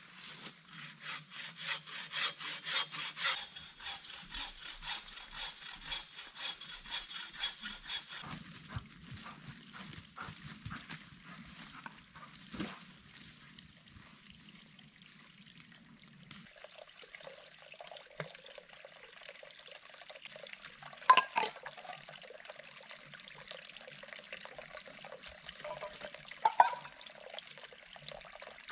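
Bow saw cutting through a log with quick, even strokes for the first eight seconds or so, loudest in the first three. Later a single sharp knock stands out, about two-thirds of the way through.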